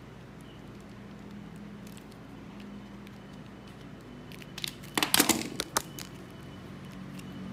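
Hard plastic of an action figure's leg cracking and clicking under a utility knife, a quick run of sharp cracks about five seconds in, over a low steady hum.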